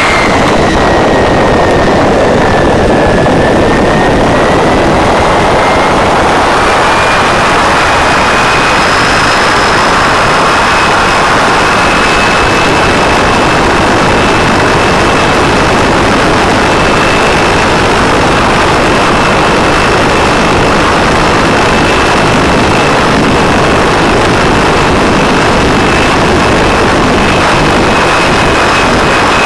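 Supercharged 572 cubic inch quad-cam V8 ski boat engine running hard at speed through open zoomie exhaust pipes, loud and steady. A high whine dips slightly over the first few seconds, then climbs and holds steady as the boat runs flat out.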